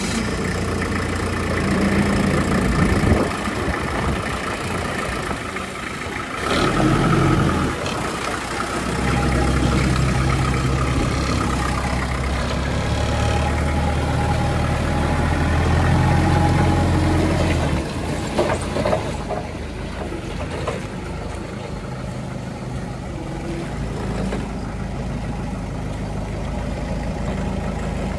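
Hangcha CPCD35HB forklift's diesel engine running as the truck is driven, rising louder for a spell about a quarter of the way in and again through the middle, then settling back to a steadier, lower run for the last third.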